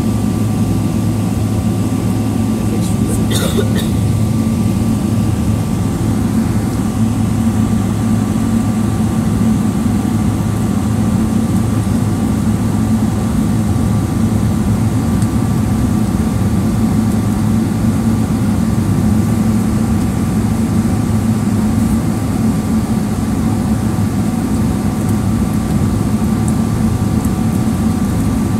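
Cabin noise of a Boeing 777-300ER on the ground with its GE90 engines at idle: a steady low hum with a faint steady whine. A brief clatter about three seconds in.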